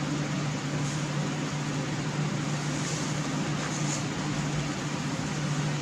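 Steady low hum over an even hiss, unchanging, from a running fan-like machine or room ventilation.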